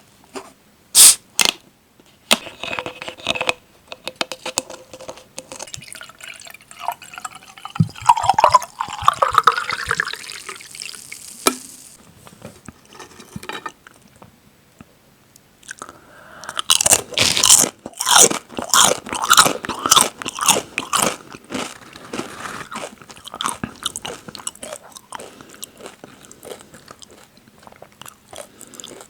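Close-miked biting and crunching of potato and tortilla chips. A dense run of crisp bites comes about halfway through, followed by lighter chewing.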